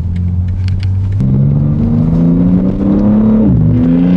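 BMW G80 M3's twin-turbo inline-six accelerating, heard from inside the cabin. The engine note climbs from about a second in, drops sharply at an upshift about three and a half seconds in, then climbs again.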